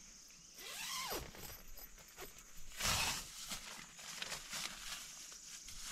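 Nylon tent door being handled: the fabric rustles and a zip is pulled in two louder bursts about two seconds apart, followed by lighter rustles and ticks. Crickets chirp faintly behind.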